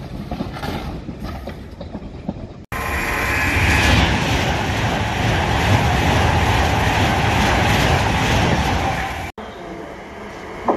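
A Class 390 Pendolino electric express train passing close by at speed, a loud, steady rush of wheels and air that cuts in and out abruptly. Before it comes a quieter rattle of a London Underground 1972 Stock train running past, and after it quieter station platform noise.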